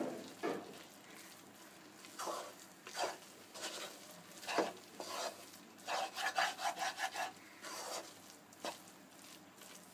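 A spoon stirring and scraping grated raw mango around a pan over low heat, in irregular scrapes with a quick run of strokes near the middle; the mango is cooking in the juice it releases.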